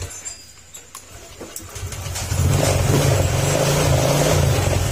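Honda Click 125 scooter's single-cylinder engine, running on a borrowed battery because its own is flat, comes up to speed about two seconds in and then runs loud and revved.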